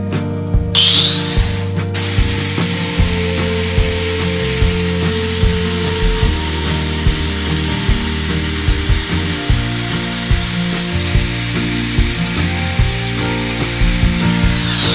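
Small electric mixer-grinder motor blending pomegranate arils into juice: a short burst rising in pitch about a second in, a brief stop, then a long steady high whine that winds down near the end.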